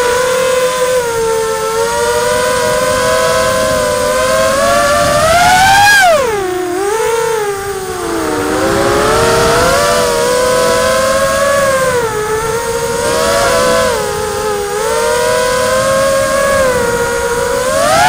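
Whine of an FPV drone's electric motors and propellers, its pitch wavering with the throttle; it drops sharply about six seconds in, climbs back, and rises again near the end.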